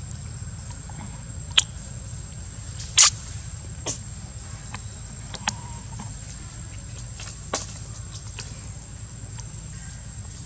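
Outdoor ambience: a steady low hum and a thin high whine, broken by about five sharp clicks or snaps. The loudest comes about three seconds in.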